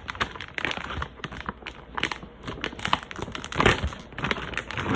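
Resealable plastic food bag crinkling as it is handled, a quick irregular run of crackles.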